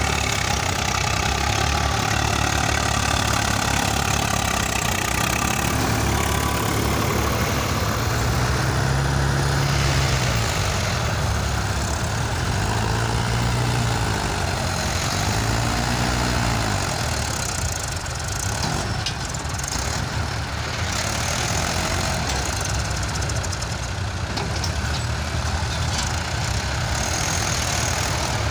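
Several diesel farm tractor engines running under load as they drag soil scrapers through loose sand. The engine pitch rises and falls a few times near the middle.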